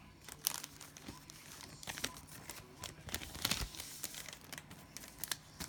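Crinkling of a cellophane trading-card pack wrapper being handled, in irregular, scattered crackles.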